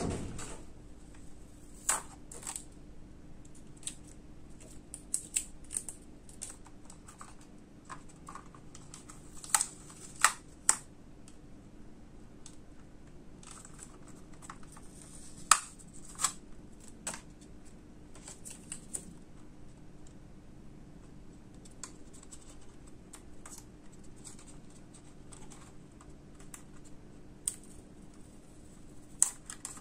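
Irregular plastic clicks, taps and light scraping from hands handling a DJI Mini 2 drone and unclipping small plastic protective pieces from it, with a few sharper snaps.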